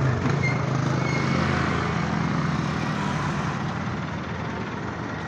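Street traffic: a motorcycle passes close and a passenger jeepney's engine pulls up alongside. A steady engine hum fades slowly over the last couple of seconds.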